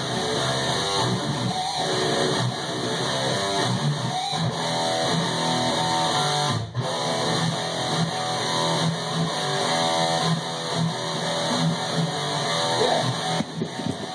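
Electric guitar playing a continuous part, with bass guitar underneath.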